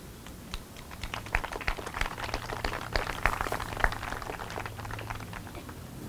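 Applause from a small crowd, with individual hand claps audible. It starts about half a second in, is densest in the middle and thins out toward the end.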